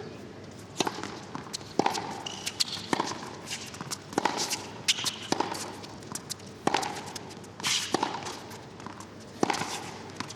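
Tennis rally: the ball is struck back and forth by rackets, with sharp hits about every second, each followed by a short ring, over the quiet hush of the stadium.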